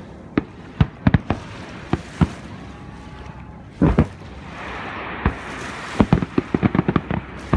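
Aerial fireworks going off in irregular sharp bangs. A heavier boom comes about four seconds in, and a rapid run of pops follows near the end.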